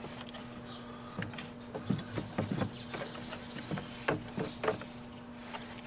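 Hard plastic air intake duct being handled and worked back into place on the engine: scattered light clicks and knocks of plastic, over a faint steady hum.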